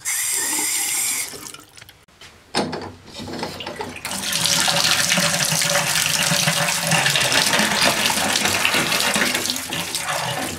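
Water running from a faucet on a just-repaired supply line: it comes on suddenly and falls off after about a second, then builds and runs steadily from about four seconds in.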